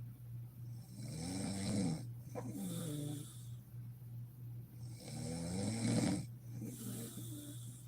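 A woman snoring in deep sleep: two snoring breaths about four seconds apart, each a pitched snore rising over about a second, then a shorter falling snore. A steady low hum runs underneath.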